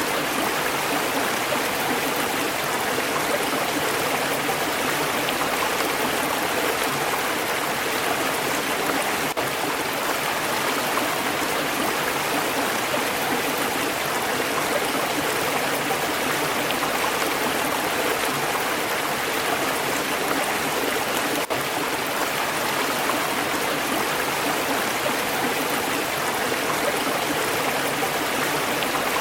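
Flowing stream: water rushing and babbling over rocks, a steady, even sound.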